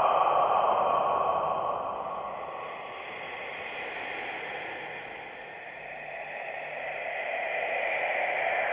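Scary whispery breathing sound effect: a breathy hiss that dies down after about a second and a half, then slowly swells back up through the second half.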